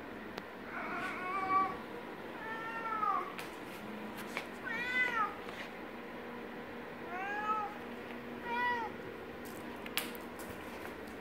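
Tabby cat meowing loudly with a toy mouse in its mouth: five long, drawn-out calls, each rising then falling in pitch, a second or two apart.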